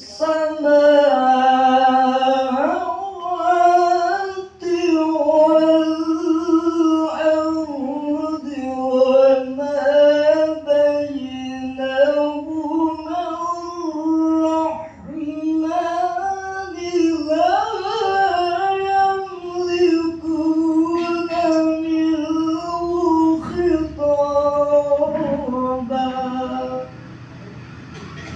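A man reciting the Quran in the melodic tilawah style, long sustained lines with ornamented turns in pitch, the phrase ending about a second before the next one begins.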